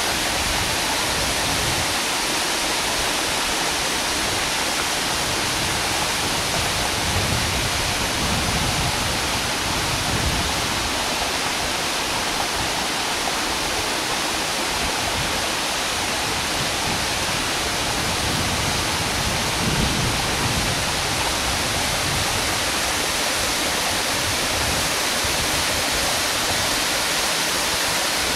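Waterfall rushing and splashing down onto rocks: a steady, even roar of falling water.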